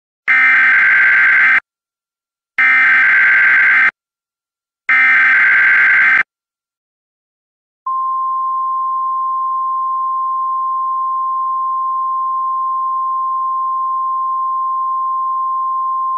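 Emergency Alert System SAME header: three identical bursts of screeching digital data tones, each just over a second long, followed after a short pause by the long, steady single-pitched attention tone that signals the alert.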